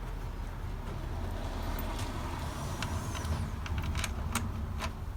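A few sharp metallic clicks as 10 mm bolts and a tool are handled to refasten the engine cover, over a steady low rumble.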